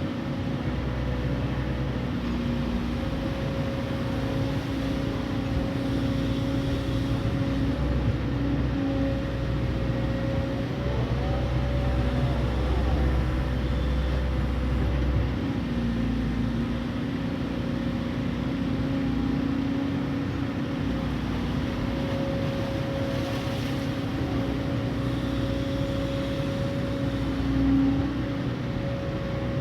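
Excavator's diesel engine running steadily while it digs mud, with a steady tone that shifts slightly in pitch as the load changes and a brief rising-and-falling whine near the middle.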